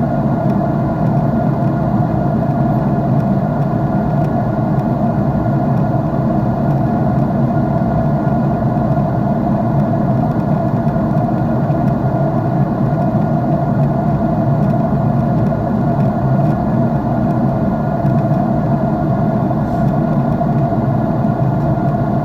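Jet airliner engines and airflow heard from inside the passenger cabin: a steady, even rumble, heaviest in the low range, that does not change.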